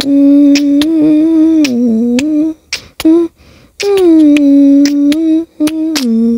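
A person humming wordless background vocals in long held notes, two long phrases split by a short note near the middle, with sharp clicks between them.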